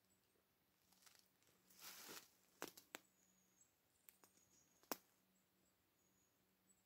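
Near silence, broken by a brief soft rustle about two seconds in and a handful of faint sharp clicks, the loudest just before five seconds in: handling noise of the handheld camera as it is turned.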